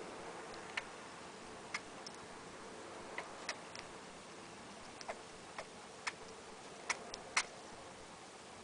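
Pet chipmunk sneezing: about a dozen tiny, sharp sneezes at irregular intervals, some in quick pairs, the loudest near the end.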